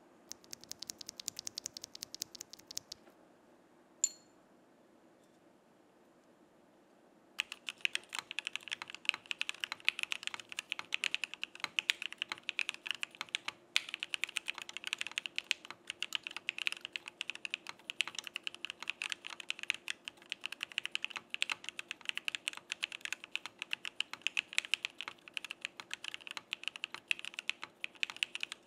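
Mechanical keyboard typing on a Geonworks Frog with JWICK Black full-nylon v2 linear switches, stems lubed, on an aluminium plate with no foam or dampening. About seven seconds in the keys start clacking in a fast, continuous run that lasts to the end. Before that there is a brief run of lighter, higher-pitched clicks, one single click, and a few seconds of quiet.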